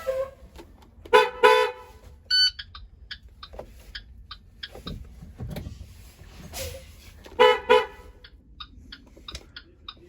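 IC CE school bus horn honking twice in quick succession, about a second in, and again about seven seconds in. A short high beep follows the first pair, and light clicks sound in between.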